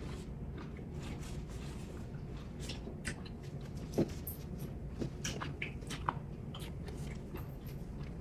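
Quiet close-up eating sounds: chewing and mouth noises, with scattered small clicks of food being handled on the plates and a sharper click about four seconds in.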